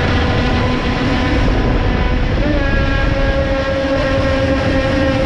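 Twin electric motors of a Dumas S Type 45 radio-control boat whining steadily under way, the pitch stepping up slightly about halfway through, over a constant rush of water and wind noise.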